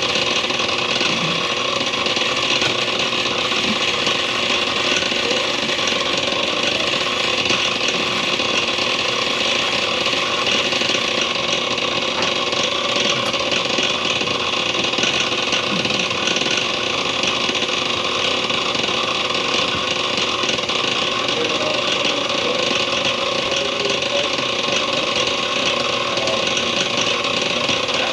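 A motor-driven machine running steadily without a break, a constant whine over dense mechanical noise.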